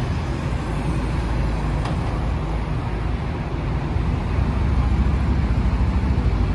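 Road vehicles passing slowly, with a steady low engine rumble that grows a little louder about four seconds in.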